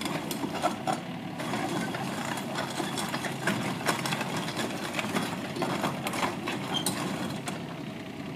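Nissan N230 mini excavator's three-cylinder engine running steadily, with frequent short clicks and clanks over it.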